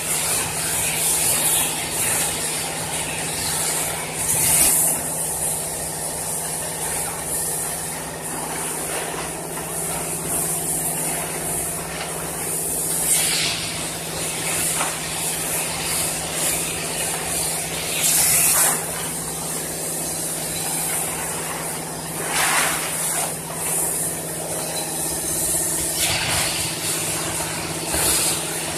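Single-side tarpaulin welding machine running with a steady hum and hiss. Every few seconds the PE tarpaulin sheet gives a brief, loud rustle as it is pulled and handled.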